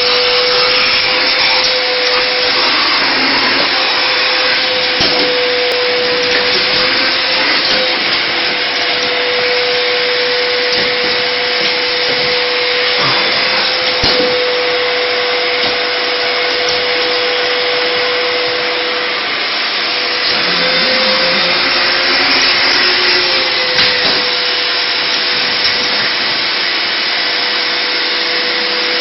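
Vacuum cleaner running steadily, a whining motor over a rushing airflow, with a few brief knocks.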